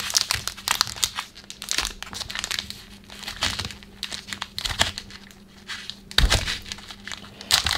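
Foil wrapper of a Pokémon TCG Dragon Majesty booster pack crinkling and tearing as gloved hands peel it open, in dense, irregular crackles.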